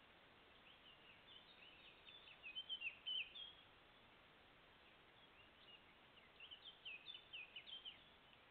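A small songbird singing two short runs of quick, chirping notes, the first about a second in and the second near six seconds, over a steady hiss from the trail camera's microphone.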